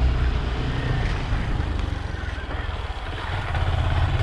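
Small motorcycle engine running while ridden with three people aboard, a low steady drone that eases off in the middle and picks up again near the end, with wind rushing over the microphone.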